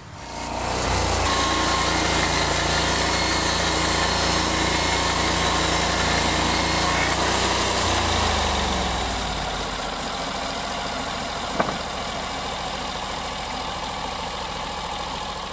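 Norwood portable band sawmill running steadily, its engine and band blade loud for the first eight seconds or so, then settling a little lower. A single sharp click about eleven and a half seconds in.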